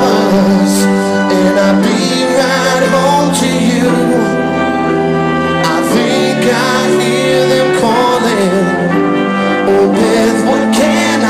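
Live band music, loud and steady, with a lead singer singing into a microphone over the band.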